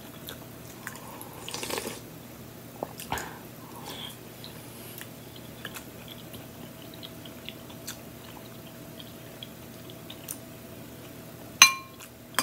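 A person quietly chewing spoonfuls of vegetable soup, with small spoon clicks. Near the end a spoon strikes the glass bowl once in a sharp, ringing clink.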